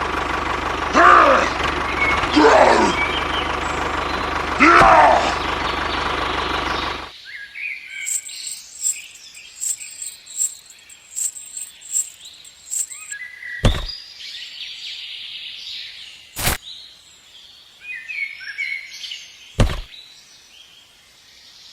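A steady hum with four loud falling cries, then an abrupt cut about seven seconds in to birds chirping outdoors. Three sharp knocks, about three seconds apart, come later over the chirping.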